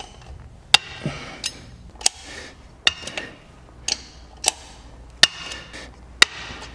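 Ratchet wrench working the wheel nuts on a tractor wheel: about ten sharp metallic clicks at uneven spacing, with faint rattling between them.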